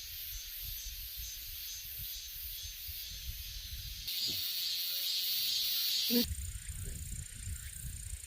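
Insects chirping in a high, pulsing rhythm over a low wind rumble; a louder, higher buzzing insect joins about four seconds in. About six seconds in the sound changes abruptly to a steady high insect drone.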